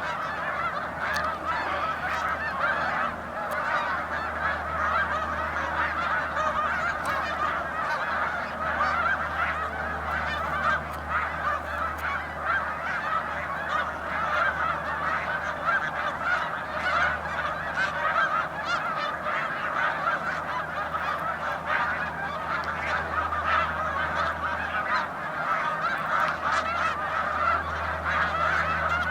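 A large flock of snow geese calling without pause, countless overlapping honks blending into one steady clamour.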